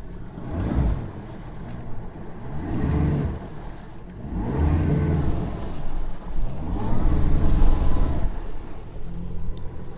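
Bass boat outboard motor put in reverse and throttled hard, revving up and falling back about four times, its propeller churning up the water.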